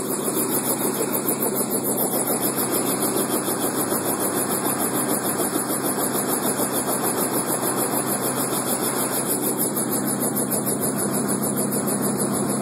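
Helicopter running close by: a steady engine and rotor sound with a fast, even beat.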